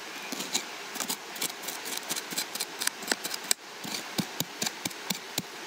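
A hand tool scraping and chopping into dry, crumbly soil, with many irregular sharp clicks and knocks as clods and grit are dug out and fall back.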